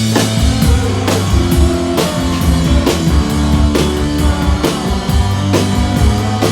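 Live rock band playing an instrumental passage: a drum kit beating steadily at about two hits a second under a thick, sustained low melodic line.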